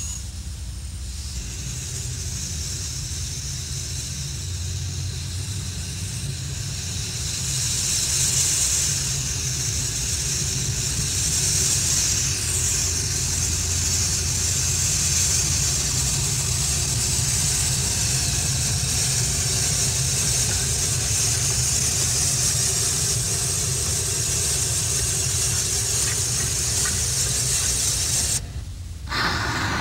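Small 2-foot-gauge 0-4-0 steam locomotive running, a steady steam hiss over a low rumble. The sound drops out briefly near the end.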